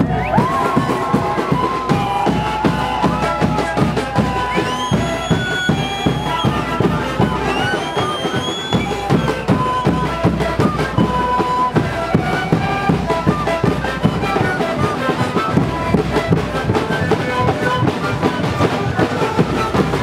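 Street band of Andean panpipes (sikus) and drums playing: many large bass drums, frame drums and snare drums beat a fast, steady rhythm under held panpipe notes. Two high sliding notes sound about five and eight seconds in.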